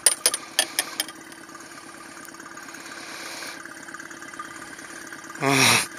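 Suzuki outboard motor idling steadily, with a few sharp clicks in the first second. Near the end there is a short, loud hummed 'mm' from a voice.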